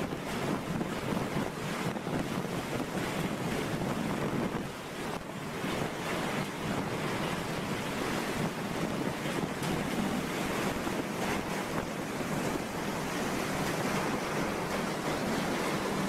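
Typhoon-force wind with driving rain: a steady rushing roar that eases briefly about five seconds in.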